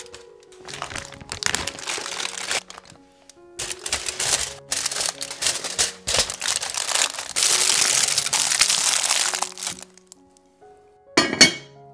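Dried lotus leaf and aluminium foil being folded and crumpled by hand, crackling in long stretches over background music, with one short sharp knock near the end.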